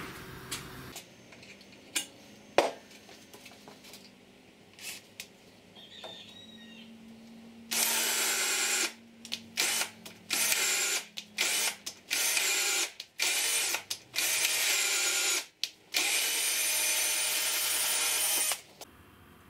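Electric hand drill boring into aluminium T-slot extrusion, run in a string of short bursts with brief stops and a longer final run. A few light knocks of handling come before the drilling starts, about eight seconds in.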